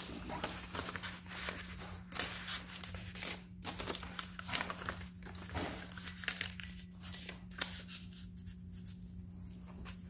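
Paper inserts and pages of a handmade fabric-and-paper journal being handled and turned, a run of irregular rustles and crinkles that thins out near the end, over a steady low hum.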